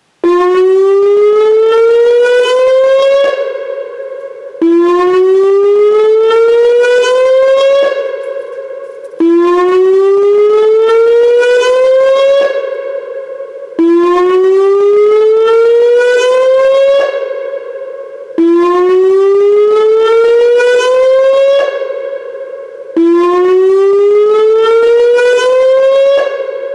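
Whelen WPS-2905 electronic outdoor warning siren sounding its whoop tone: a rising sweep of about three seconds that breaks off and starts again about every four and a half seconds, six times. It is a dam-evacuation flood-warning tone being sounded as a test.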